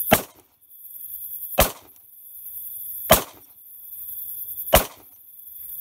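Outro sound effect: a steady insect-like chirring with a thin steady whistle above it, and a sharp knock four times, about every second and a half, each led in by a short swell that grows louder.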